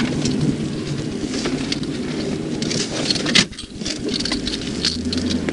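Patrol car rolling slowly: steady engine and road noise with scattered small clicks and rattles, and one sharp knock about three and a half seconds in.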